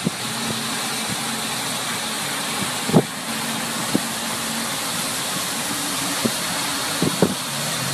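Steady road and engine noise of a moving car, heard from inside the cabin, with a few short knocks, the loudest about three seconds in.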